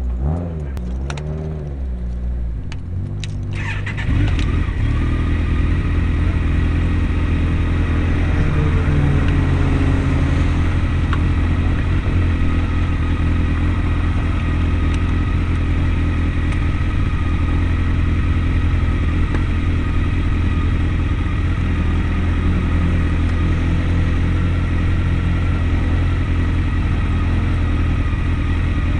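Car engine idling steadily, heard from inside the stationary car. About four seconds in, the sound steps up louder and fuller and then holds steady.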